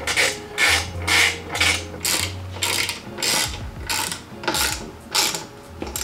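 Ratchet wrench clicking in quick back-and-forth strokes, about two to three a second, as the fender bolts are tightened into the motorcycle frame.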